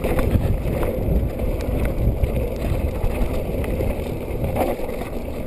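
Mountain bike rolling fast down a rough dirt and gravel trail: a steady rumble of tyres on loose ground and wind buffeting the camera microphone, with scattered clicks and rattles from the bike.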